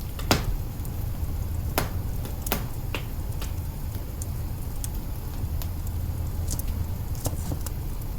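Wood fire of a Yule log burning in an open hearth: sharp crackles and pops at irregular intervals over a steady low rumble of the flames. The loudest pop comes about a third of a second in.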